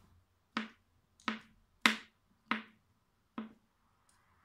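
Kitchen knife chopping boiled eggs on a plastic cutting board: five sharp knocks of the blade striking the board, about two-thirds of a second apart.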